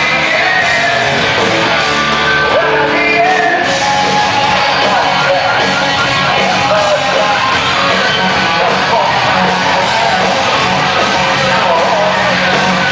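Live hard rock band playing loudly, with distorted electric guitars, bass and drums under a singer's voice.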